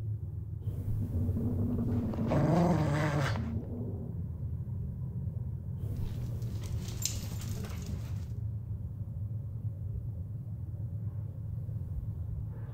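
A dog gives a short, low grumbling whine about two seconds in, over a steady low hum; a breathy rustle follows a few seconds later.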